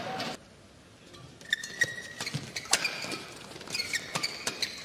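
Badminton rally on an indoor court: sharp racket strikes on the shuttlecock and sneakers squeaking on the court mat, starting about a second and a half in after a brief lull.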